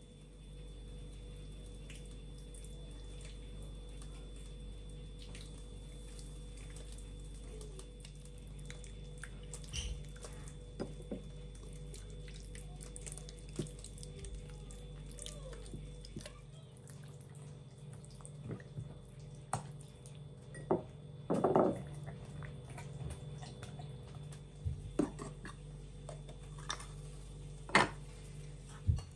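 Hands working a dark, wet marinade over a whole raw chicken: scattered wet squelches, drips and light taps on a wooden board, with a louder squelch past the middle, over a steady low hum.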